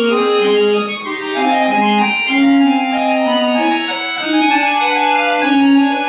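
Button accordion (bayan) playing a polyphonic passage in several voices, with held, overlapping reed notes that change about every half second to a second.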